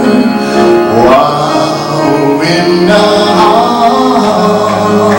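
Live gospel music: a group keeps singing over a band with guitar, between sung lines.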